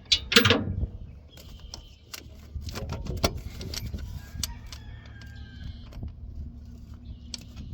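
Scattered sharp metal clicks and clinks from hand tools and a loosened starter bolt being worked out, over a low steady hum.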